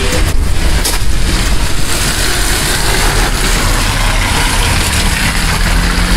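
Steady, loud noise of motor vehicle engines running on the road, with a low, even rumble; a faint steady engine note comes in near the end.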